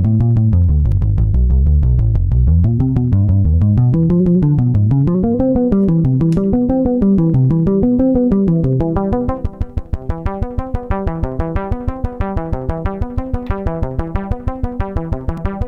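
Modal Electronics Cobalt5S synthesizer playing an arpeggio of rapid repeating notes that swing up and down in pitch, with a deep bass under the first few seconds. From about nine seconds in, the notes turn short and clipped as a knob on the synth is turned.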